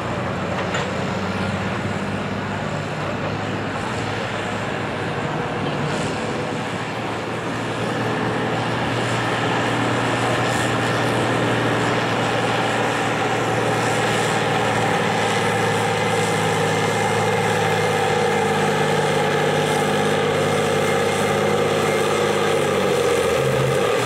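John Deere 4320 farm tractor's turbocharged six-cylinder diesel running hard under load as it drags a tractor-pull sled. The engine note holds steady and grows louder about a third of the way in, then falls in pitch near the end as the engine comes off.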